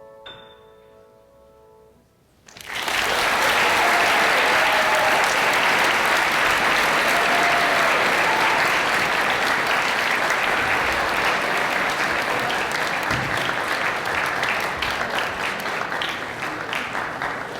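An audience applauding. The clapping breaks out about two and a half seconds in, just after the last piano notes die away, and thins to scattered claps near the end.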